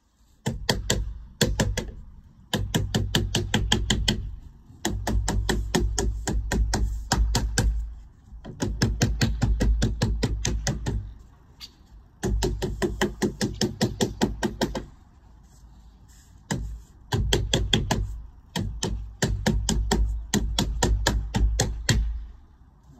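Rapid, regular knocking in runs of two to three seconds, about eight runs with short pauses between: a tool working the lead capping on coping stones.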